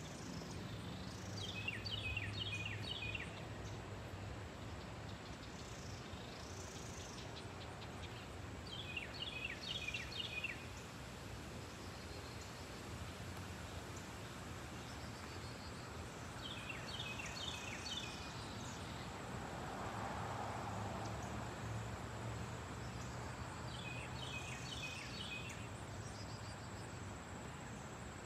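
A distant jet flying high overhead gives a steady low rumble. Over it, a bird repeats a short burst of quick chirps four times, about every seven or eight seconds.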